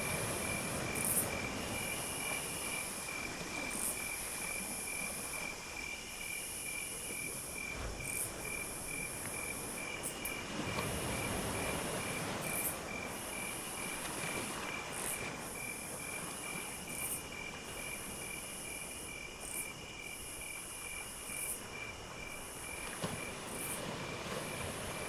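Crickets chirping in a steady, rapid pulse, while a higher-pitched insect shrills in long phrases broken by short gaps, over a steady background rush.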